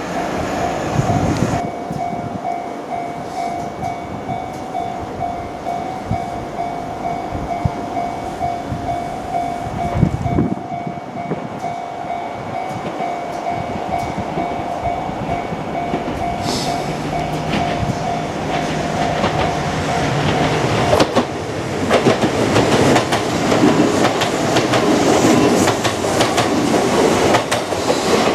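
Japanese level-crossing warning bell ringing in a steady, pulsing single tone. About twenty seconds in, a Kintetsu Minami Osaka Line electric train arrives and runs over the crossing, and its wheels clatter over the rail joints, louder than the bell.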